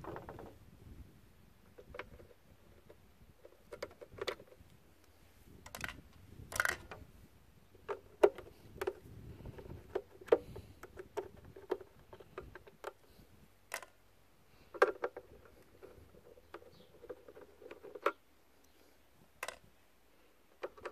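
Screwdriver working the screws inside a bread maker's metal pan chamber: scattered sharp clicks and taps of metal on metal, with a couple of longer stretches of grinding as the screws are turned out.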